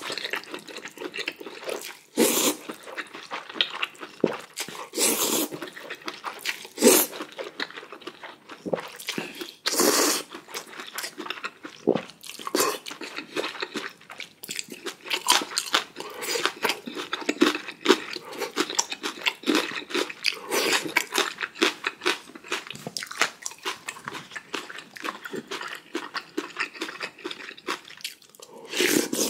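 A person eating close to the microphone: continuous chewing and crunching, with louder bursts every few seconds.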